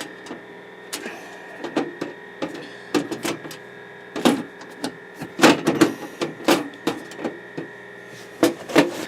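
Plastic side panel of a desktop computer case being pried and tugged by hand: irregular clicks, knocks and rattles as the stuck panel resists coming off.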